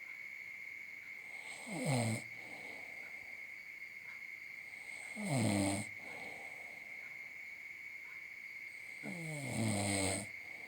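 A man snoring in his sleep: three snores, one about every three and a half seconds, each falling in pitch, the last one longer. A steady high-pitched tone runs underneath.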